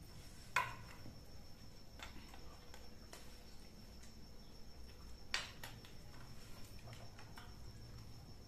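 Quiet room with the light clicks and clinks of a meal eaten by hand from plates and dishes: two sharper clinks, about half a second in and about five seconds in, and fainter ticks between. A faint steady high-pitched whine runs underneath.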